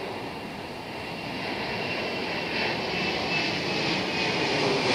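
Boeing 747's four jet engines passing low overhead. The engine noise grows steadily louder as the plane approaches, and a high whine in it drops slightly in pitch.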